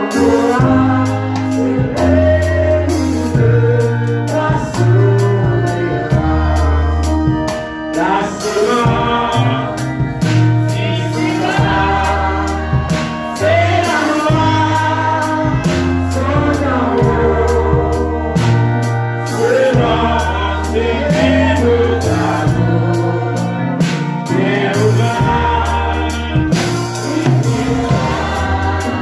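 Gospel hymn sung by several voices in worship, over held low bass notes from an instrument.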